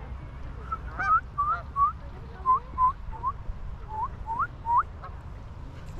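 Waterfowl calling: a run of about ten short, rising calls. A steady low rumble sits underneath.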